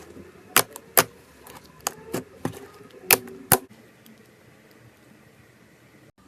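A series of sharp clicks and taps, mostly in pairs about half a second apart, from hands handling slime-making materials; they stop about two-thirds of the way through, leaving a faint steady hiss.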